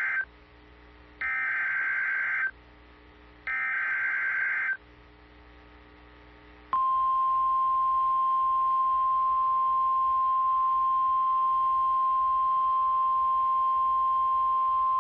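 Emergency Alert System SAME digital header on NOAA Weather Radio: the end of one data burst, then two more, each about a second long with a second's gap. About seven seconds in, a steady 1050 Hz warning alarm tone starts and holds unbroken for about nine seconds, the signal that a new warning announcement follows.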